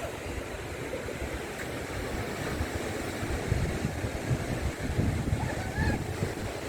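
Sea waves washing in, with wind buffeting the microphone in uneven gusts.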